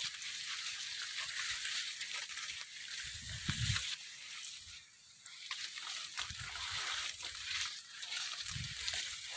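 Rustling and brushing of young maize leaves while walking through the crop, over a steady hiss, with a few soft low thumps.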